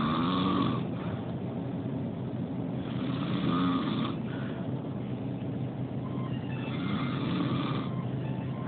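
Motorcycle engine running with a steady low note, revved in three short blips, each rising and falling in pitch, about every three and a half seconds.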